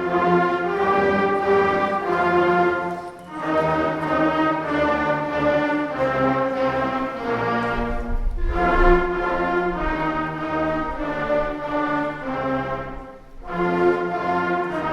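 Elementary school beginning band of wind and brass instruments playing a simple melody in held notes, with short breaks between phrases about 3 and 13 seconds in.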